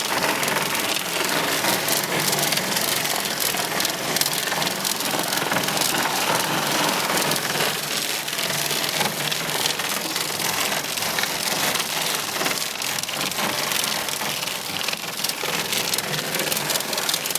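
Hail and heavy rain pelting down in a steady, dense clatter of countless small impacts.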